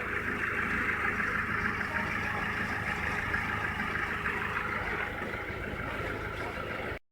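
Mercedes A160's 1.6-litre four-cylinder petrol engine idling steadily, with an even hiss over a low hum, cutting off suddenly near the end.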